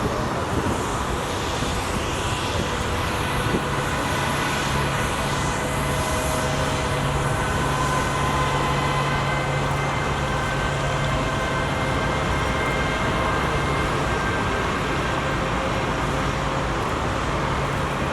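Boeing 777-300 jet engines running at taxi power, a steady rush with a thin, even whine.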